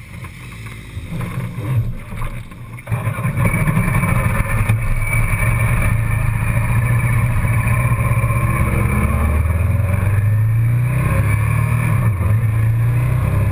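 Motorcycle engine running low, then about three seconds in it goes loud as the bike pulls away and accelerates, its pitch rising and dipping as the rider works the throttle and gears, with wind noise on the handlebar-mounted camera.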